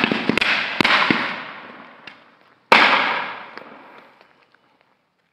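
Diwali firecrackers bursting: a few sharp bangs in the first second, then one loud bang nearly three seconds in. Each bang echoes and fades away.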